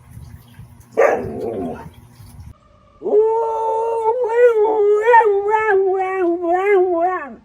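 Siberian husky: a short rough call about a second in, then one long howl held about four seconds, its pitch wavering up and down toward the end.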